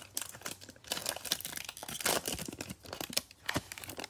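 Foil wrapper of a basketball trading-card pack being torn open and crinkled by hand: a rapid, irregular crackle.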